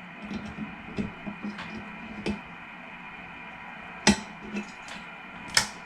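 Snap ring pliers working a snap ring off a 1G DSM 90 shifter assembly's arm: scattered light metal clicks and ticks, the sharpest about four seconds in and near the end.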